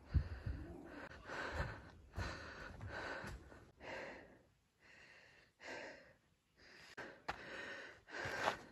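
A hiker breathing hard close to the microphone, a quick run of breaths in and out, about one to two a second, with a couple of short pauses, as she climbs the uphill first half of the trail.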